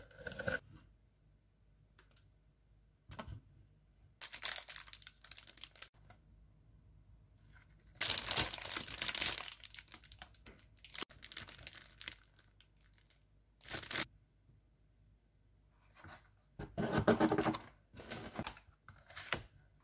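Grocery packaging handled in irregular bursts: plastic wrap and bags crinkling and rustling as items are unpacked from a cardboard delivery box, the loudest stretch about eight seconds in.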